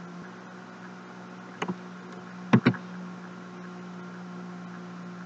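Two sharp computer mouse clicks about a second apart, the second louder, over a steady low electrical hum and faint hiss on the microphone.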